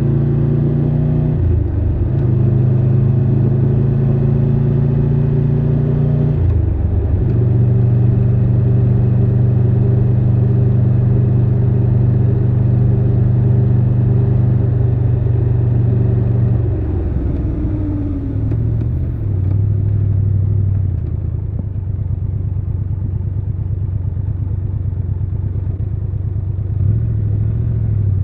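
Triumph Tiger 1200 Rally Pro's three-cylinder engine pulling through the gears, with two brief dips in pitch early on as gears are changed. It then holds a steady pitch at cruise, drops as the throttle is rolled off about two-thirds of the way in, runs at low revs, and starts to rise again at the very end.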